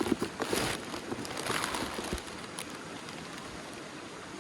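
Rustling handling noise from a folded tent and its packing being moved about, in the first two seconds, then a faint steady hiss.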